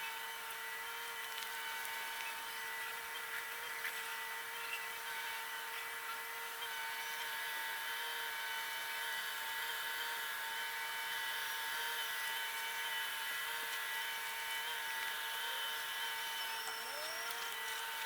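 Steady whine of a small electric motor, a cluster of held pitched tones, with a brief rising slide in pitch near the end.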